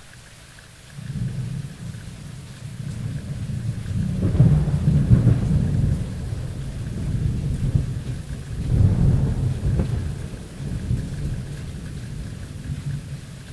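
Thunder rumbling over steady rain. The low rumble starts about a second in, swells loudest twice, around the middle and again a few seconds later, and then slowly dies away under the rain.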